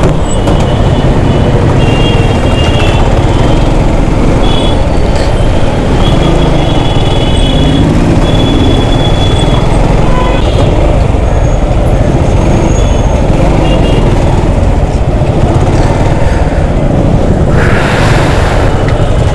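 Heavy road traffic heard from a motorcycle in a jam: a steady loud rumble of engines, with several short horn toots between about two and nine seconds in and a brief hiss near the end.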